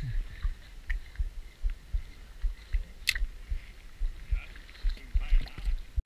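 Water slapping against the hull of a small fishing boat on choppy water: irregular low thumps, a few a second, with a single sharp click about three seconds in.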